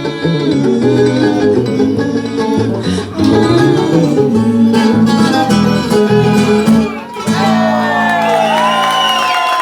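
Instrumental break of a Brazilian song: plucked guitar strings over a steady bass line. Voices come in over the music in the last two seconds.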